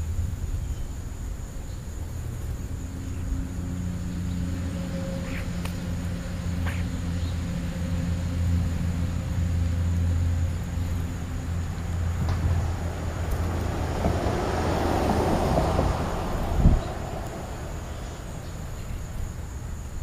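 A motor vehicle on a nearby road: a low, steady engine hum, then a swell of road noise that rises, peaks and fades as it passes. A single short knock comes near the end.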